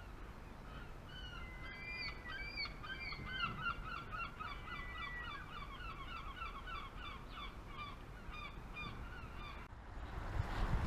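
A flock of geese honking, many short calls overlapping in a rapid chorus that cuts off abruptly near the end, with a rush of low noise at the very end.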